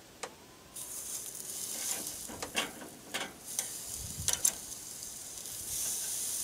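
Pork tenderloin sizzling over hot charcoal as it is moved onto the direct heat for browning, the sizzle starting under a second in. Metal tongs click and clank against the grill grate several times in the middle.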